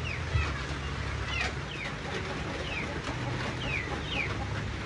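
Chicks peeping in a series of short falling notes, about eight in all, over a low steady hum.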